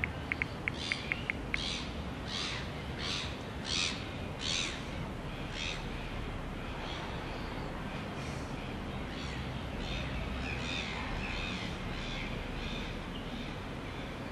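Birds calling. A string of calls comes about twice a second for the first five seconds or so, then fainter chirping follows, over steady background noise. A fast run of short high ticks is heard in the first second and a half.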